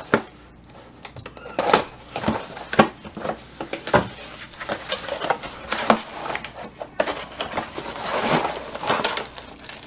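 Small cardboard box being handled and opened: irregular scrapes and rustles of the flaps with sharp knocks, and a longer rustle near the end.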